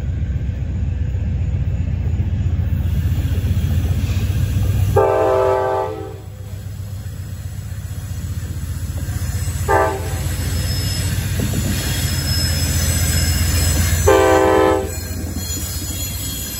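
Amtrak GE P42DC diesel locomotives approaching with a steady low engine rumble, the lead unit sounding its multi-note horn three times: long, short, long. This is the closing part of the grade-crossing horn signal as the train nears the crossing.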